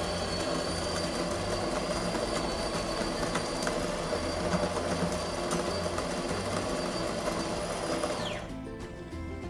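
Built-in grinder of a De'Longhi PrimaDonna fully automatic espresso machine grinding beans at the start of a coffee: a steady high motor whine that winds down and stops about a second before the end, over soft background music.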